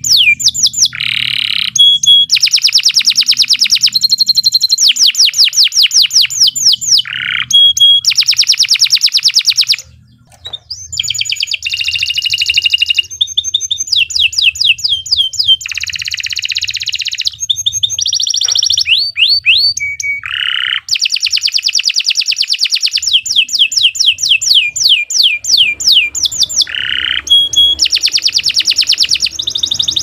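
Domestic canary singing a long, continuous song: rapid trills of repeated, quickly falling notes, one phrase after another, with a brief pause about ten seconds in.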